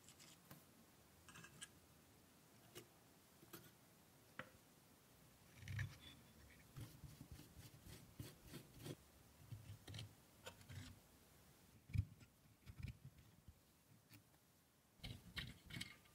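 Faint, scattered clicks, scrapes and light knocks as a screwdriver works rusty screws and rusty Meccano metal parts are handled against a wooden body, with one sharper knock about twelve seconds in.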